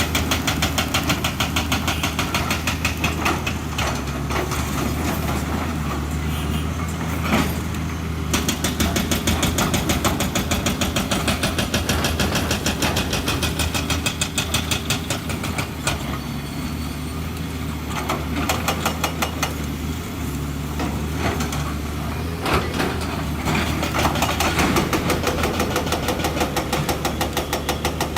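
Excavator's diesel engine running steadily with a fast, even pulsing beat. The beat grows louder for several seconds at a time, as the machine works under load.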